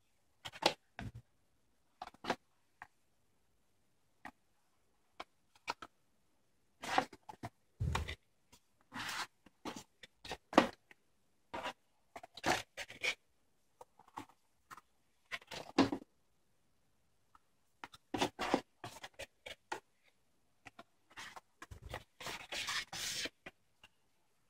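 Cardboard boxes and packaging being handled: irregular scrapes, rustles and light taps as small card boxes slide out of a kit box and are set down, with a longer run of scraping near the end.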